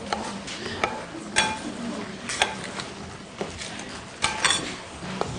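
A utensil stirring pancake batter in a glass bowl, with several irregular knocks and clinks against the glass.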